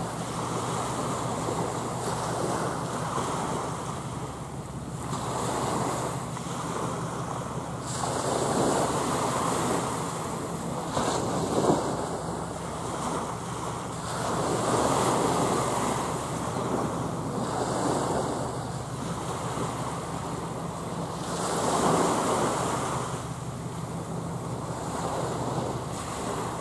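Waves washing against the shore, swelling and easing every few seconds, with wind on the microphone. A steady low hum runs underneath.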